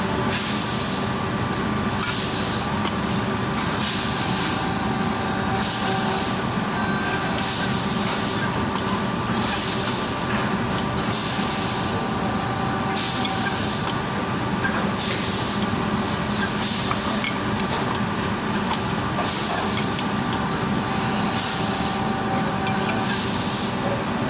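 CNC bending machine running in a fabrication shop: a steady mechanical hum with a hiss that swells and fades about every two seconds.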